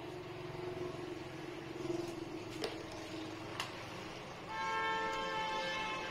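A vehicle horn blares steadily on one pitch for about a second and a half near the end. It is preceded by a few sharp clicks and a faint steady hum.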